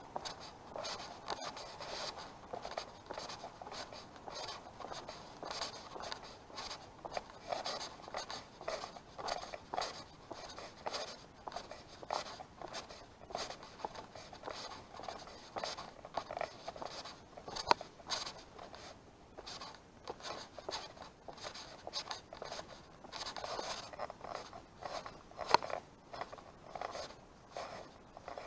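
Rustling and scraping from walking: footsteps on a path strewn with dry fallen leaves, mixed with the camera rubbing against clothing, in irregular bursts. Two sharp clicks stand out later on, about eight seconds apart.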